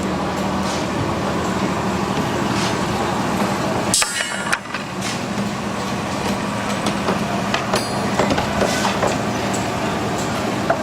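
A machine engine running steadily with a low hum, with scattered clicks and knocks and a sharp clatter about four seconds in.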